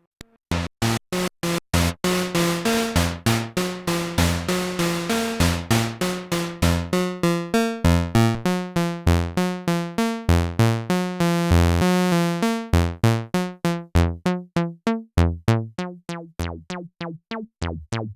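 Behringer CRAVE semi-modular analog synthesizer (single 3340 oscillator into a ladder filter) playing a dry sequence of short plucked notes, about four a second, with low bass notes among higher ones. The tone brightens sharply about two seconds in and turns thinner and more resonant in the second half, as the filter is swept.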